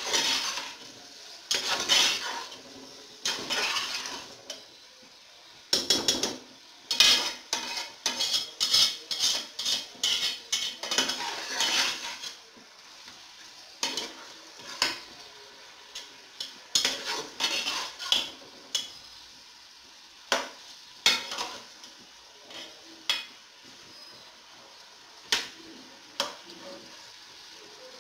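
Metal slotted turner scraping and clinking against the inside of an aluminium pressure cooker as chicken is stirred and browned in oil, with a low sizzle of frying underneath. The scraping is dense for roughly the first twelve seconds, then thins to occasional scrapes and knocks.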